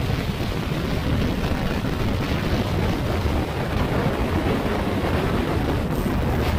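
Steady wind rush on the microphone over the running noise of a Yamaha NMAX scooter being ridden along, its CVT fitted with RS8 parts.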